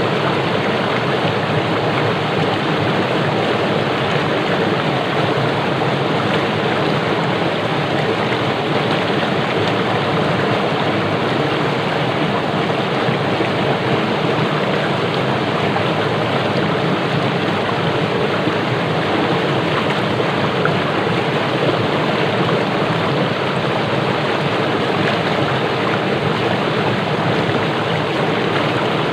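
Fast-flowing stream rushing and splashing over rocks: a steady, loud rush of water that keeps up without a break.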